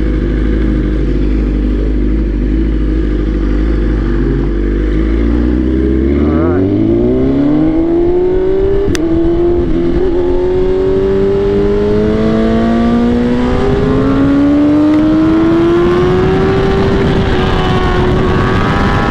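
Superbike engine heard from the rider's own bike. It runs at a low, steady pitch for about six seconds, then opens up: the pitch climbs sharply and keeps rising slowly under hard acceleration.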